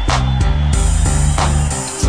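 Hip-hop backing music with a heavy bass line and regular drum hits, an instrumental stretch with no rapping.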